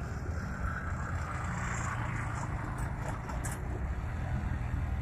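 Motorcycle engine running steadily as it tows a wheeled steer roping dummy on a rope across a sand arena.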